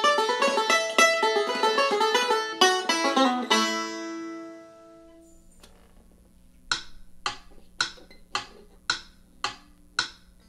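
Five-string resonator banjo played fast with fingerpicks. It ends the tune on a chord that rings and dies away, and after a short quiet stretch eight evenly spaced sharp clicks, about two a second, keep time.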